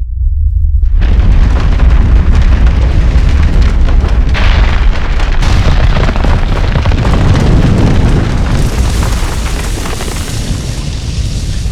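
Earthquake sound effect: a deep, continuous rumble, joined about a second in by dense crashing and crumbling like falling debris, with a fresh surge of crashing about four seconds in, easing slightly near the end.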